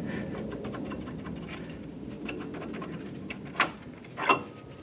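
A 2004 Honda Civic's rusty front brake pad being worked out of its caliper bracket: faint scraping and light metallic clicking, with two sharper clicks near the end.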